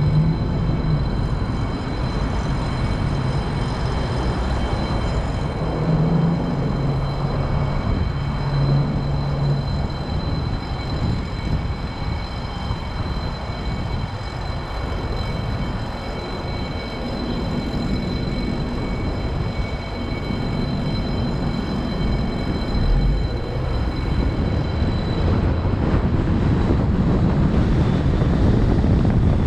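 Road traffic at a city intersection heard from a car waiting at a red light: cars passing across in front, with a low engine hum from a passing vehicle between about six and nine seconds in. Near the end the car moves off and road and wind noise grow louder.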